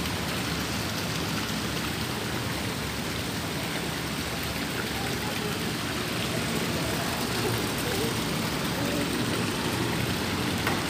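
Steady rush of running water, an even noise that holds without a break. A light knock comes near the end.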